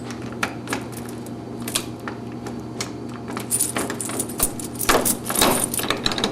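Keys jangling and small metal clicks as the vending machine's key is worked in its door lock, turning into a busier metallic clatter past the halfway point. A steady low hum runs underneath.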